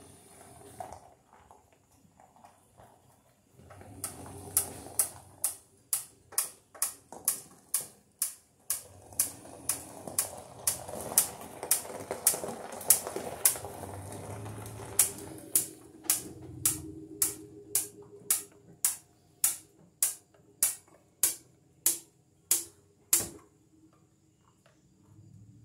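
Sharp clicks from hand work at a steel electrical switch box, coming evenly at about two a second, with a short break about halfway.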